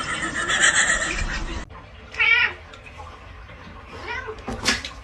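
A cat meows about two seconds in, one wavering call, with a shorter, fainter cry near the end.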